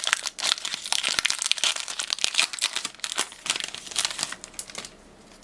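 Plastic foil wrapper of a Pokémon booster pack crinkling as it is torn open and handled, a dense irregular crackle that thins out near the end.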